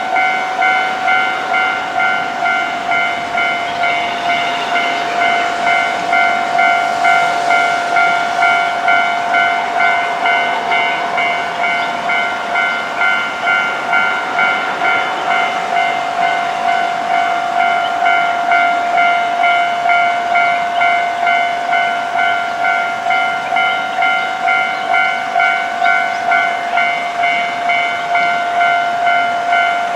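Japanese railway level-crossing alarm ringing its electronic warning tone, one clear pitched ding repeating evenly about one and a half times a second.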